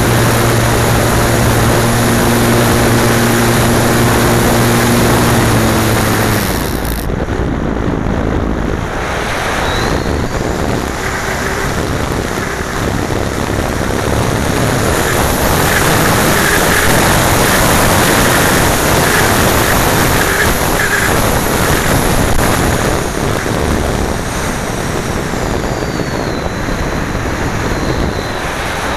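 Air rushing over a key fob camera mounted on a slope-soaring ST Fox glider, a loud, steady wind noise that swells and eases as the plane dives and banks. A steady low hum runs underneath at first, dips slightly and stops about six seconds in.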